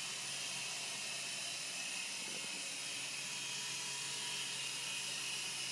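Dynam Vortex M100 micro RC helicopter's small electric motors and rotors running steadily in flight: an even hiss with a faint high whine.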